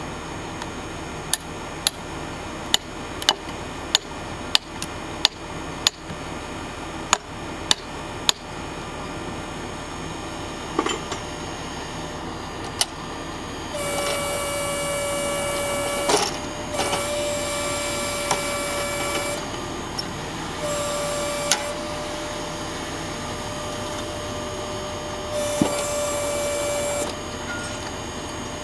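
About a dozen sharp knocks, a little over half a second apart, over a low steady hum. From about halfway a Dorn-Tec vertical hydraulic log splitter whines in a steady high tone in stretches of one to three seconds as its levers are held and the ram drives down, with a couple of sharp cracks among them.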